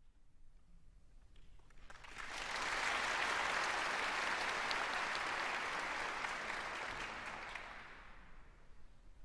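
Audience applauding in a concert hall. The clapping swells about two seconds in, holds, and dies away near the end.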